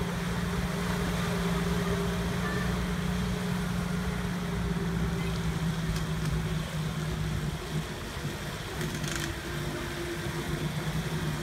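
VW LT 4x4 van's engine running at a steady pitch as the van drives through shallow water and out onto muddy sand. The engine note grows unsteady near the end.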